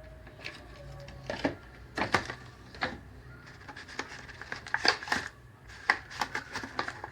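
Irregular clicks and taps of a spoon against a bowl, some in quick clusters, as ginger garlic paste is added to crab pieces for marinating.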